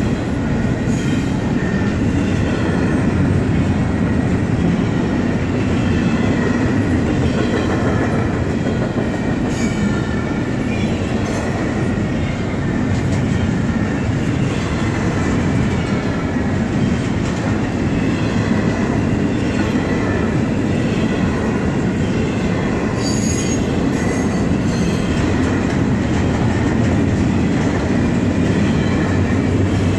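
Florida East Coast Railway freight train of double-stack container cars rolling past: a steady, loud rumble of steel wheels on rail, with thin squealing from the wheels.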